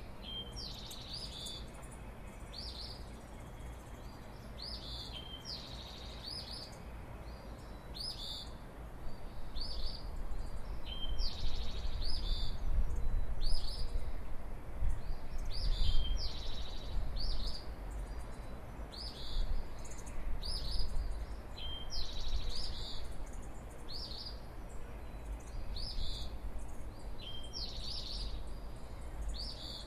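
Songbirds of the dawn chorus singing short, high phrases over and over, every second or two. A low breeze rumble on the microphone swells through the middle.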